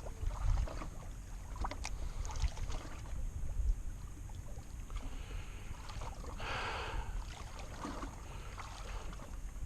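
Wind rumbling on the microphone over faint water against a small fishing boat, with a few light knocks and a short hiss about six and a half seconds in.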